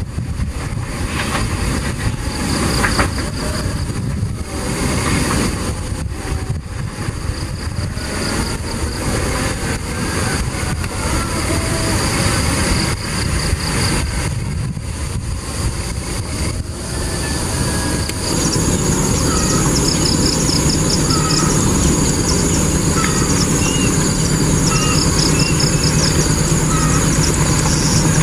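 Passenger train rumbling on the rails as it runs away around a curve, with wind buffeting the microphone. About two-thirds through, the sound changes abruptly to the steady low hum of an approaching diesel locomotive, with insects buzzing and birds chirping.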